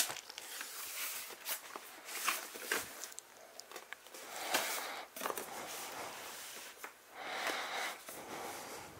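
Scissors cutting the tape on a cardboard box, then the box's cardboard flaps being opened and the packing inside handled: scattered sharp clicks and short rustling, scraping noises, with a longer rustle near the end.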